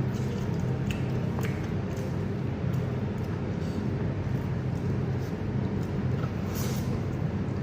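Steady low background hum, with a few faint clicks about a second in and again near the end.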